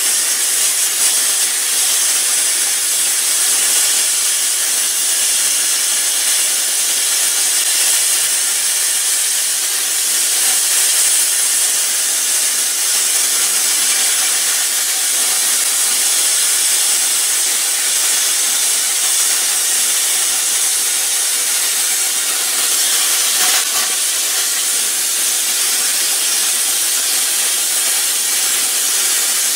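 Plasma cutter cutting through the back lip of a wheel rim: a steady, unbroken hiss.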